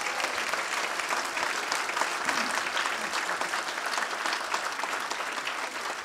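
Audience applauding: a dense, steady clapping that eases off slightly near the end.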